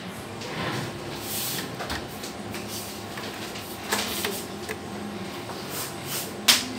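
Ricoh copier's steady low hum with a few sharp clicks and knocks, the loudest near the end, from keys being pressed on its control panel.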